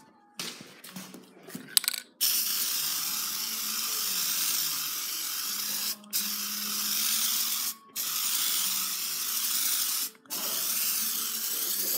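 Air-fed paint spray gun spraying: a steady hiss starts about two seconds in and breaks off briefly three times between passes. A few clicks and knocks come before it.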